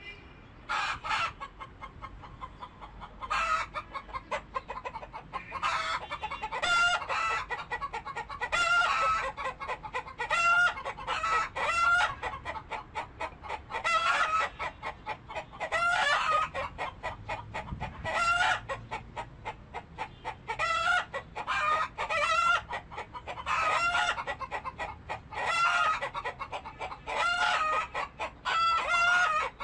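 Chickens clucking in repeated runs of short calls, a new run every second or two.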